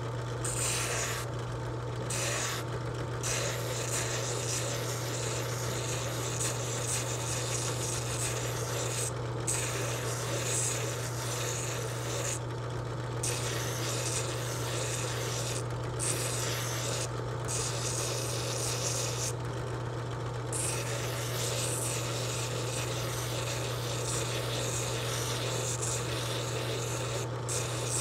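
Small sycamore lure body being shaped against a motor-driven spinning sanding drum: a steady rasping of abrasive on wood over a constant motor hum. The rasp breaks off briefly about ten times as the piece is lifted and turned.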